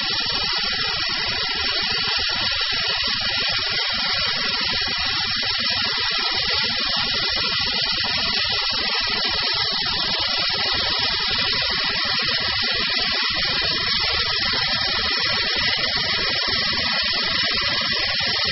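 OMAX waterjet cutting through metal plate: its high-pressure jet gives a loud, steady hiss as it cuts a circular hole.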